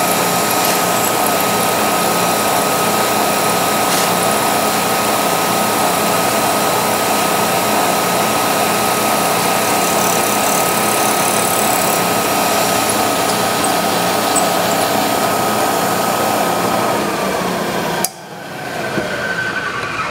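Vertical milling machine running a 3/16-inch end mill through the final pass of the extractor slot in a Sako rifle bolt: a loud, steady machining noise with a high whine. The whine falls in pitch, then the noise cuts off sharply about two seconds before the end.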